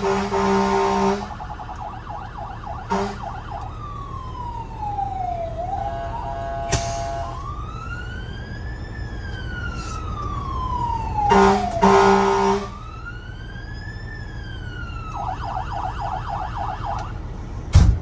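Code 3 V-Con electronic siren cycling through its tones: a rapid yelp, then a slow wail rising and falling several times, then the yelp again. Blasts of a low air horn come at the start, briefly about three seconds in, and twice around eleven to twelve seconds in.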